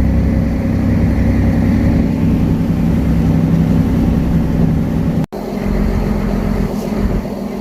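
An engine running steadily with a low hum. It cuts off abruptly about five seconds in, and a lighter rumble with some wind noise follows.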